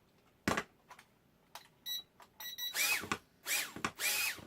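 Hot Wheels racing drone: a click and a few short electronic beeps, then its small motors whirring up in three short bursts. Each burst rises quickly in pitch, holds briefly and cuts out. The drone is not flying right after a wing repair.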